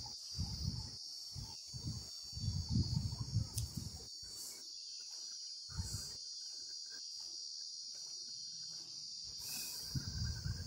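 Steady high-pitched insect chirring, like crickets, with low muffled bumps coming and going in the first few seconds and again near the end.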